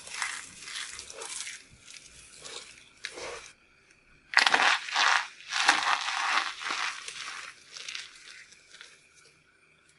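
Dry crumbled soap and starch-filled heart-shaped soap shells crunching as hands squeeze and crush them, a dense run of crisp crunches. After a short pause about three and a half seconds in comes the loudest crunching as the soap hearts are crushed, tailing off near the end.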